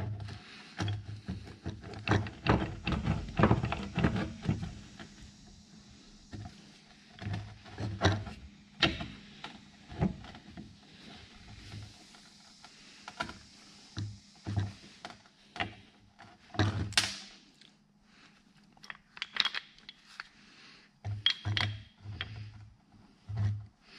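Irregular metallic clicks, clinks and knocks of A/C compressor pistons and swashplate parts being worked apart with pliers, busiest in the first few seconds, with one sharper knock about 17 seconds in.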